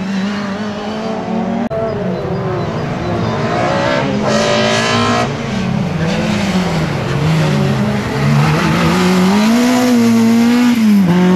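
Race-prepared VW Golf Mk1's engine revving hard through a slalom, its pitch rising and falling again and again as the car accelerates, lifts and shifts between the cones. It revs highest for a moment about four seconds in.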